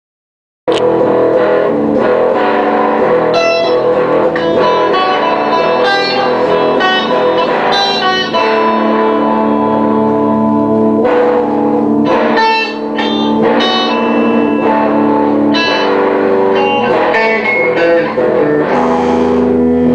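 Electric guitars playing together in a band, starting abruptly just under a second in.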